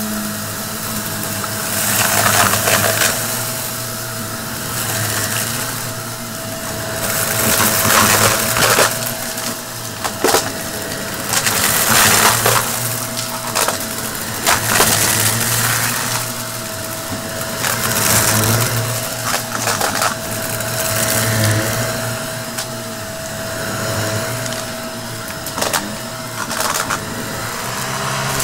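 Shark upright vacuum cleaner running with a steady whine, pushed back and forth over a shag rug so that it swells every few seconds. Debris crunches and crackles as it is sucked up.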